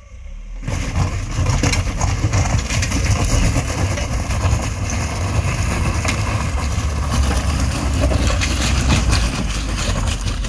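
Tata Nexon driven hard over a rough, stony road: tyres crunching over gravel and loose stones, with the engine running under load. The noise starts suddenly just under a second in and stays loud and steady, with many short clicks of stones.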